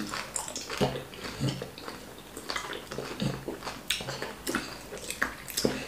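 Wet chewing and mouth-smacking sounds of people eating fufu and ogbono soup, with scattered light clicks and clinks from dishes and cutlery.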